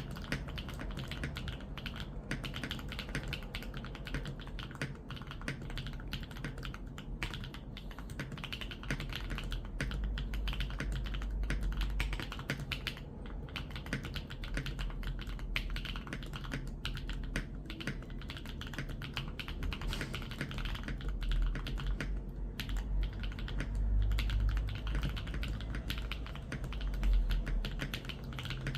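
Continuous fast typing on a Monsgeek M5 mechanical keyboard with Feker Holy Panda tactile switches: a dense, uneven stream of key clacks, with a low rumble swelling underneath now and then.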